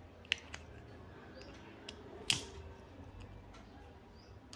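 Small metal clicks of a screwdriver working the tension screw on a sewing machine's metal bobbin case as the screw is tightened, with two sharper clicks, the louder about two seconds in.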